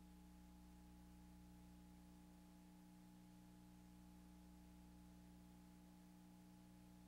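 Near silence: a faint, steady electrical hum over a low hiss, from a blank stretch of an old Akai VK half-inch videotape playing back.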